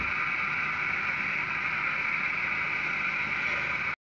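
Tomato purée sizzling steadily as it fries in a pan, an even hiss that cuts off suddenly near the end.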